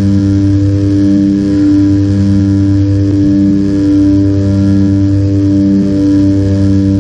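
The turboprop engines and propellers of a de Havilland Canada Twin Otter running steadily in flight, heard from inside the cabin. There is a strong, steady hum with a slow throb about once a second.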